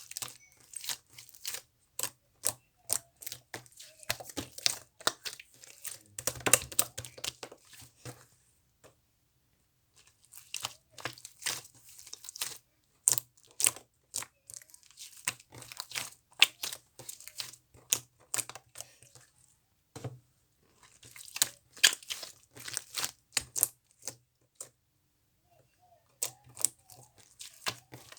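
Sticky slime being pressed and stretched by hand, giving quick runs of small wet pops and clicks. It pauses about a third of the way in and again near the end.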